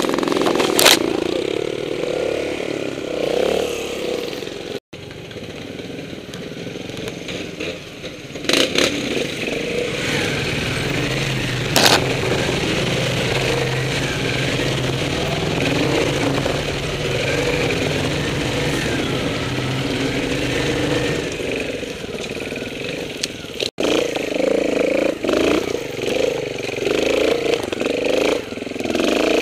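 Trials motorcycle engine running, revving at times and holding a steady note for a stretch in the middle, with a few sharp knocks. The sound breaks off briefly twice.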